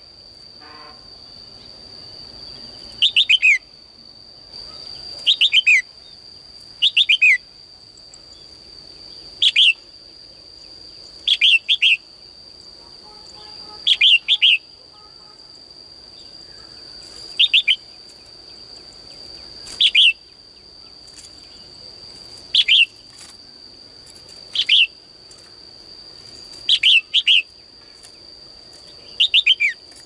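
Female red-whiskered bulbul calling in a cage: short bursts of quick descending chirps, one every two to three seconds. A steady high-pitched whine runs underneath.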